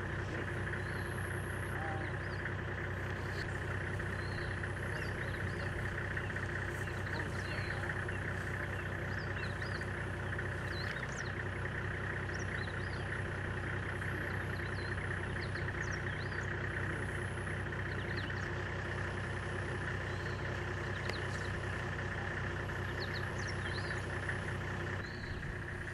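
A steady low mechanical hum with many short high bird chirps over it.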